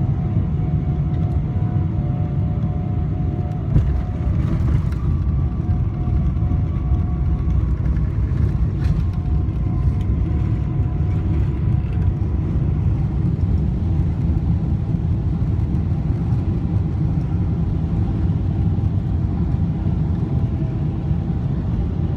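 Cabin noise inside a Boeing 777-300ER on the ground after landing: a steady low rumble with faint whining tones, and a single thump about four seconds in.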